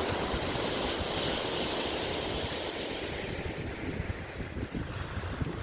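Sea surf and wind outdoors in a storm, a steady rushing noise with wind rumbling on the microphone, easing a little near the end.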